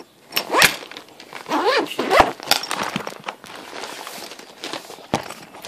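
Handling noise as a zippered mesh bag is opened and rummaged through: rustling, with a few sharp knocks along the way.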